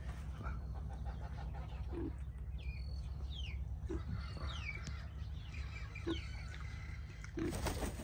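Farmyard birds calling: a run of short, high calls that each fall in pitch, with a few low clucks between them, over a steady low rumble.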